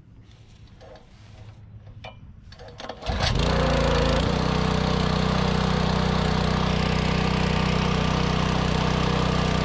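Simpson gas pressure washer's small engine catching about three seconds in after a few faint clicks and handling noises, then running steadily at full speed.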